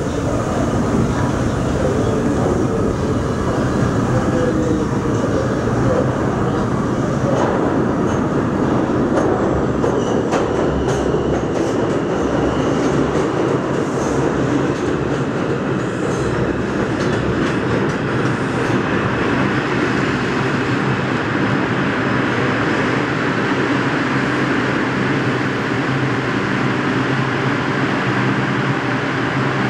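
New York City Subway 2 train pulling into the station: its wheels clatter over the rail joints, with a faint high brake squeal through the middle as it slows. Once stopped at the platform it gives a steady hum.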